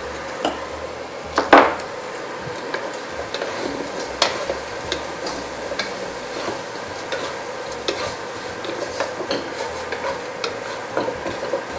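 Wooden spatula stirring and scraping in a wok, tossing sauce-coated fried shiitake strips and sesame seeds, with many short scrapes and clicks over a light sizzle. A sharper knock of the spatula comes about a second and a half in.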